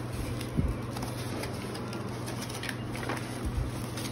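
Food being spooned from a large metal pot into foam takeaway boxes: soft scraping, rustling and light knocks of the spoon and foam containers, with a low thump about half a second in, over a steady low hum.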